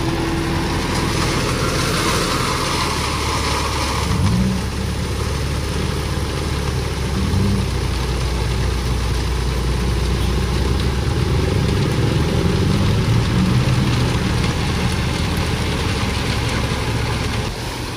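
Mitsubishi Canter dump truck's diesel engine running under load and revving up a few times to drive the hydraulic hoist as the tipper bed rises. Over it there is a rushing hiss of the crushed-stone load sliding out of the bed, strongest in the first few seconds.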